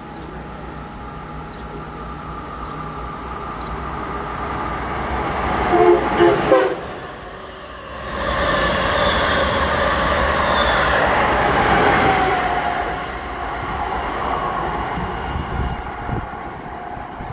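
Amtrak Acela high-speed train approaching and running through the station at speed. It sounds its horn in three short blasts about six seconds in, then goes by with a loud rush of wheels and air that fades as it draws away.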